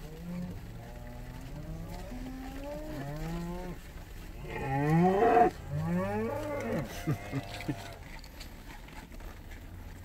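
A herd of cattle mooing, several calls one after another and overlapping, the loudest and longest about five seconds in, then a few shorter calls.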